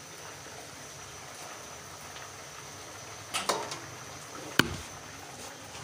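Chicken pieces frying in oil in a kadai with a faint steady sizzle, while metal tongs lifting them out knock against the pan a few times past the middle and once with a sharp clack about a second later.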